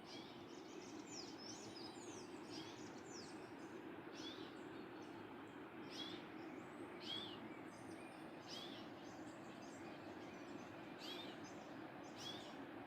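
Steady rush of a waterfall with birds singing over it: short, high, sweeping chirps repeated about once a second, with a quicker cluster of notes near the start.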